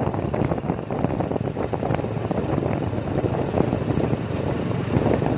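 Engine of an open passenger cart running steadily as it rides along, with wind noise on the microphone.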